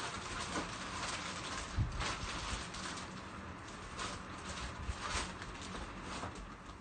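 Plastic bags crinkling and rustling as wrapped items are handled and lifted out of a cardboard box, with a few soft knocks of things shifting inside it.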